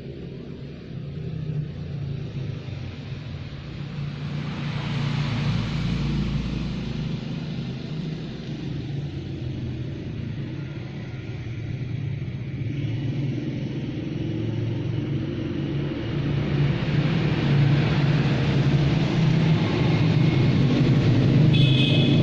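Motorcycle engine running steadily with a low rumble, swelling louder twice.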